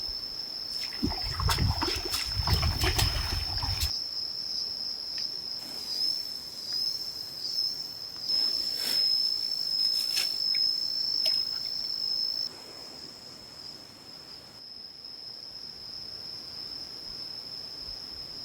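Water splashing and sloshing for a few seconds, then scattered small splashes and clicks, over a steady high-pitched insect drone.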